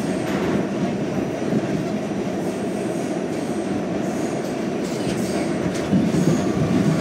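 Westinghouse-Amrail R68 subway car running at speed, heard from inside the car: a steady rumble of wheels on rail, with faint high wheel squeal at times and the noise growing a little louder near the end.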